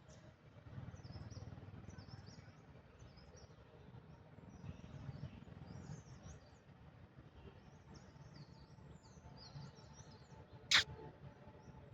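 Small birds chirping faintly in many short, high calls over a low rumbling background noise, with one sharp click near the end.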